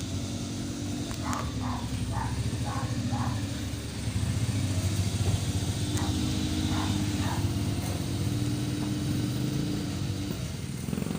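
A motor vehicle engine running steadily at an even, low pitch.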